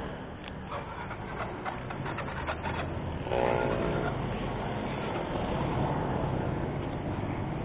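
Paper banknotes being handled and counted close to the microphone, crinkling and crackling for the first few seconds, over a steady rumble of nearby traffic. About three seconds in, a short pitched hum stands out briefly.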